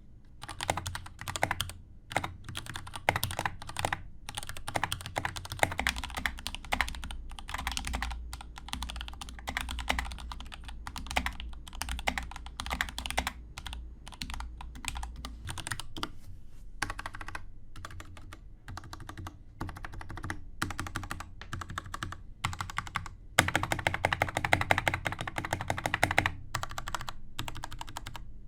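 Typing on a GK61 mechanical keyboard fitted with Gateron Black linear switches: a steady run of rapid key clacks that grows denser and louder about twenty-three seconds in.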